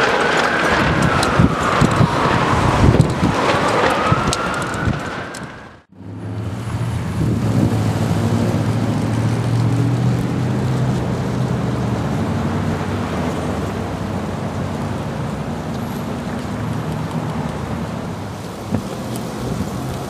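Strong wind gusting, with a whistling tone that glides down and back up in the first few seconds. The sound drops out briefly about six seconds in. It returns as a steadier wind rush with a low hum underneath.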